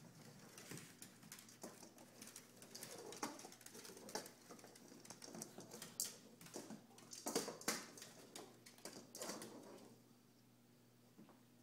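Dogs' claws clicking and scuffling on a hardwood floor as they move about, a faint run of irregular taps and patters that dies down near the end.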